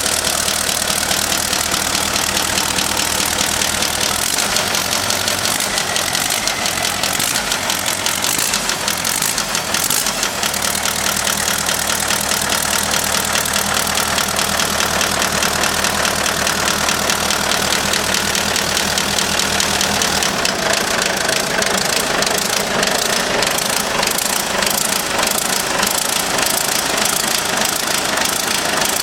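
Hino EF750 16.7-litre twin-turbo diesel engine of an NR655 rotary snow blower running with an abnormal knocking noise and uneven, irregular running, which the seller lists as a fault. Its low drone shifts a few times, most clearly about twenty seconds in.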